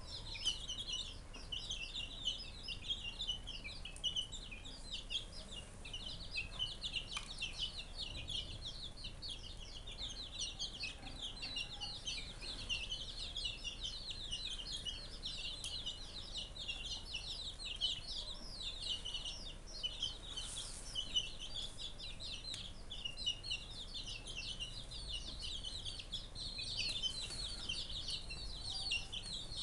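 A flock of young chicks peeping continuously: many short, high-pitched, falling cheeps overlapping one another.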